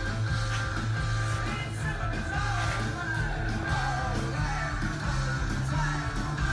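Rock music with singing, electric guitar and a steady beat.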